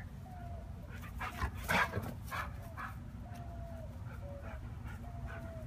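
Dogs playing, a husky and a great Pyrenees: a few short sharp sounds between one and two and a half seconds in, then soft drawn-out whines, repeated several times.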